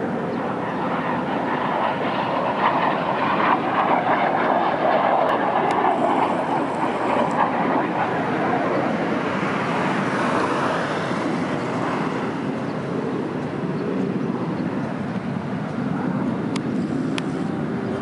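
Steady noise of military jet aircraft in flight, swelling and easing slowly over several seconds, with a few faint clicks.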